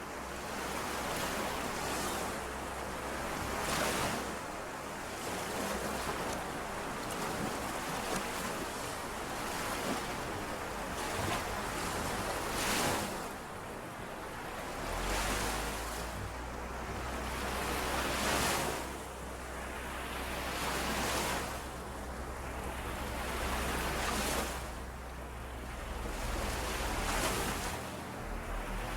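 Small lake waves washing in and out on the shore, each wave a rising and falling hissing splash every two to three seconds.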